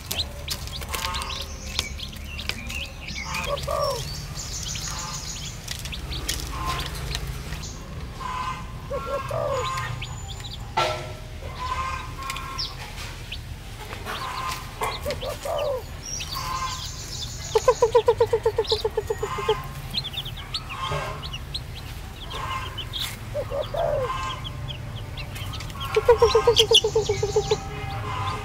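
Baby chicks peeping in a scattered flock chorus of short chirps. Twice, a louder call of rapid even pulses lasting about two seconds cuts in, once about two-thirds of the way through and again near the end.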